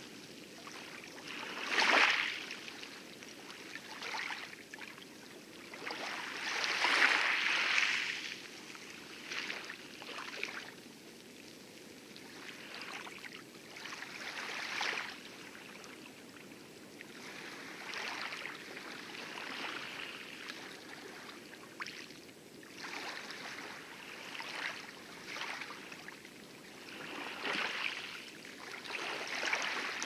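Light waves lapping and splashing around a small rowboat on a coral atoll lagoon. The splashes come in irregular swells every few seconds over a steady wash of water, the loudest about two seconds in and around seven seconds in.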